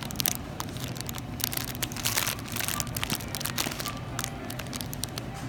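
Clear cellophane bag of chocolate-covered pretzels crinkling as it is handled and turned over, an irregular run of sharp crackles, with faint background music underneath.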